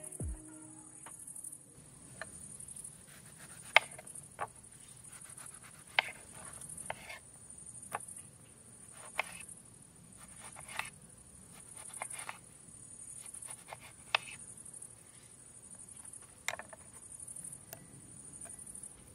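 Paring knife cutting a lemon on a wooden cutting board: sharp knocks of the blade meeting the board every second or two. Under them runs a steady high-pitched insect chorus.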